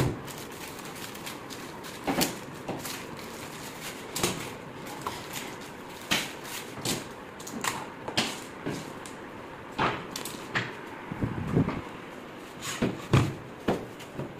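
Irregular knocks, clicks and clatter as metal drawer-slide channels and laminated wood panels are handled, positioned and set down on a worktable.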